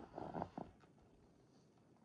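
A few crunching footsteps in snow, stopping after about half a second.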